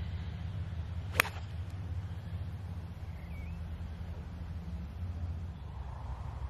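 A golf club striking the ball off the tee: one sharp crack about a second in, over a steady low rumble of wind on the microphone.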